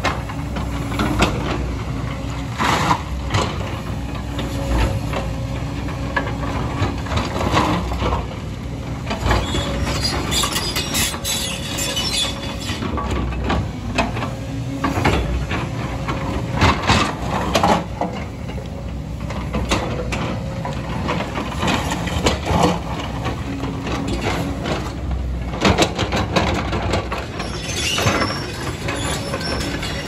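JCB excavator's diesel engine running steadily under load, with the bucket scraping and rocks knocking and clattering at irregular moments as it digs.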